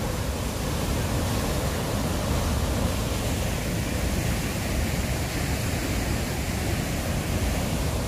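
Steady rushing roar of Huka Falls, the Waikato River's water pouring through the falls without a break.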